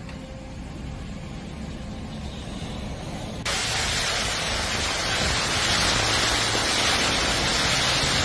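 Gale-force storm wind buffeting the microphone with a low rumble; about three and a half seconds in it cuts suddenly to a louder, steady hiss of hurricane wind and driving rain.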